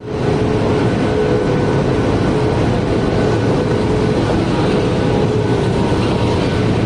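Steady, loud running noise of corrugated-box-making machinery, a jumbo flexo printer slotter casemaker, with a few steady hum tones through it.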